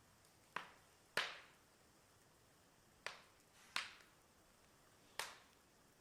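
Firewood burning in an outdoor fireplace, popping five times at uneven intervals, each sharp crack dying away quickly.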